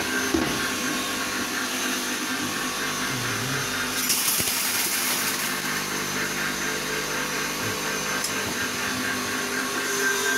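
Electric mill running for grinding glass into powder: a steady motor hum and whirr, with a brief hissing rush about four seconds in.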